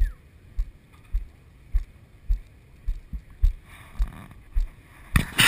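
Low, even thumps repeating a little under twice a second, with a faint click on each, over a quiet steady background. Near the end a loud rustling rush of handling and wind on the microphone.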